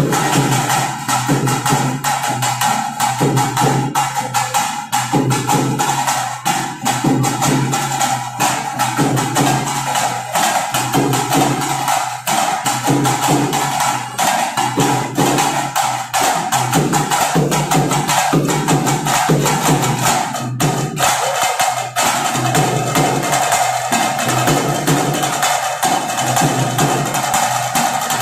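Live festival percussion music: drums and sharp wood-block-like clacks beating a steady rhythm, over a steady sustained high note.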